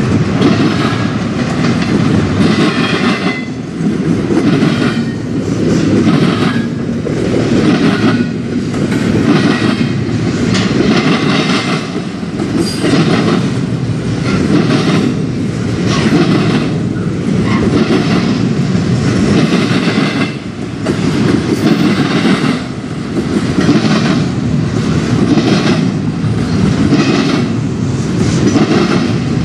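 Double-stack intermodal freight train's well cars rolling past close by, the steel wheels clattering over the rail joints in a steady run of clicks that rises and falls as each car goes by.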